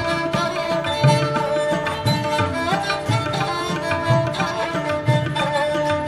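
Background music: held melodic notes over a drum beat, with a low drum hit about once a second.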